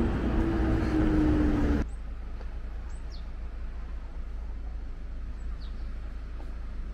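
Street traffic noise with a vehicle's steady engine hum, cutting off suddenly about two seconds in to a quieter outdoor background with a few faint bird chirps.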